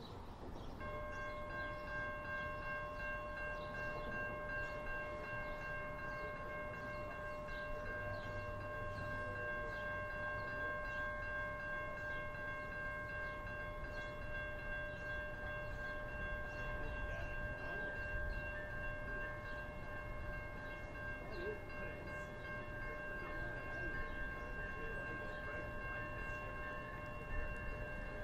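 Railway level-crossing warning bell ringing without a break, starting about a second in: the crossing's warning is active for an approaching train.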